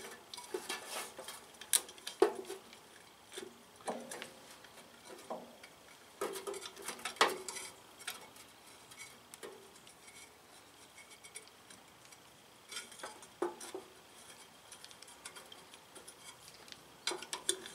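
Irregular light metallic clicks and clinks of a hand driver and bolts against the metal mesh flywheel screen of a Briggs & Stratton 18 hp horizontal engine as the bolts are fitted. There is a quieter stretch in the middle.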